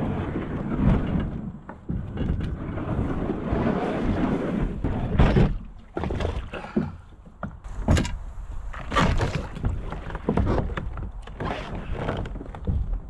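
A kayak being handled and moved to the water: its hull scraping and knocking, with irregular thumps and rustling.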